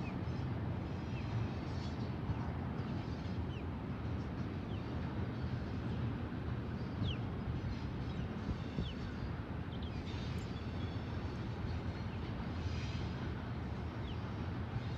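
Steady low rumble of a distant freight train rolling across a trestle, with short bird chirps scattered over it.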